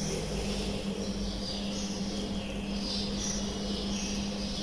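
Steady low hum under faint, irregular high-pitched chirping.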